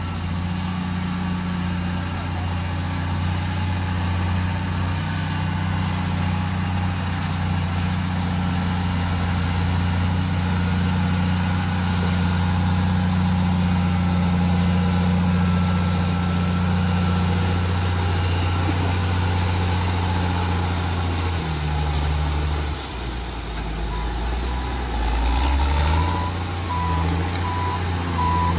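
Diesel engine of a Caterpillar 140H motor grader running steadily under load, its note dropping and wavering about three-quarters of the way through. Near the end a reversing alarm starts beeping at an even pace.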